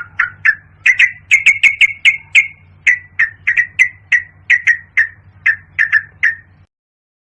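Yellow-vented bulbul calling: a quick run of short, sharp chirping notes at about the same pitch, several a second, over a faint low hum. The calls stop abruptly about six and a half seconds in.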